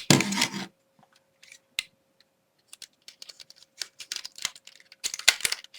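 Small plastic clicks and rattles from handling a smoke detector while its interlink cable is plugged in, scattered and getting busier near the end.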